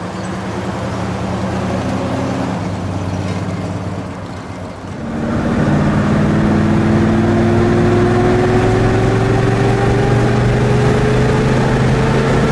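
1972 Buick GS's 455 V8 running as the car drives by. About five seconds in, it is heard louder from inside the cabin, pulling steadily under way with its pitch rising slowly.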